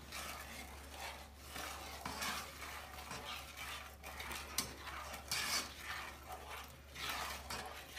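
A spatula stirring and scraping through a thick, lumpy mixture of sugar, butter and evaporated milk in a nonstick saucepan, in irregular strokes about one or two a second, as the praline base is set to melt.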